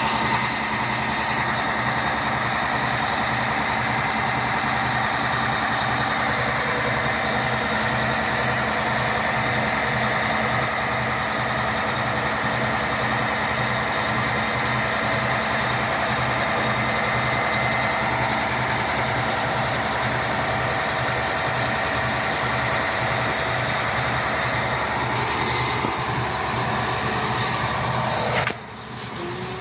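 Drilling rig's diesel engine running steadily, with a steady high whine over its low pulsing note. The sound drops off abruptly near the end.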